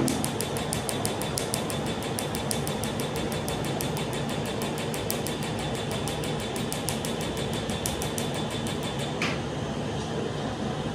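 A tattoo-removal laser firing, a rapid, even train of sharp snapping pulses at about seven a second over a steady high tone. The pulsing stops with a single click about nine seconds in.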